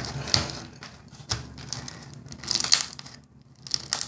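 Hands stretching and squishing slime, making irregular crackling and popping clicks, with a louder cluster of crackles about two and a half seconds in.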